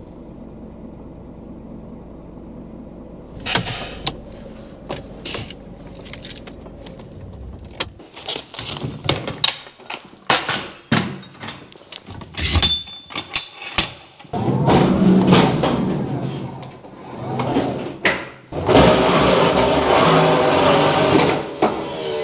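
Pallets being unloaded inside a truck trailer: after a steady low hum, scattered knocks and clatter of crates and pallets, then two long, loud stretches of rattling as a pallet jack rolls a loaded pallet over the trailer floor.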